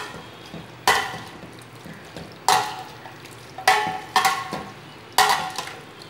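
Perforated metal spoon stirring mutton pieces in a stainless steel pan: about five sharp scrapes and knocks of metal on metal, a second or so apart. Under them runs a faint sizzle of the meat frying in oil.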